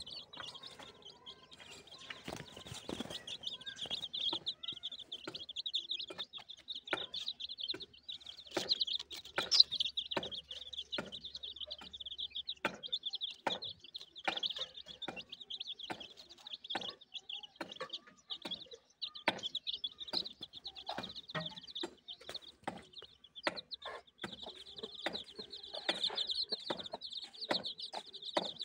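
Young chicks peeping continuously in rapid high-pitched chirps, with a mother hen clucking softly now and then and frequent short sharp ticks.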